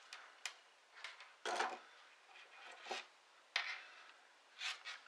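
Quiet handling sounds: a few light clicks and short rubs as a soldering iron is set into its coiled-wire stand and a freshly soldered wire and connector are handled.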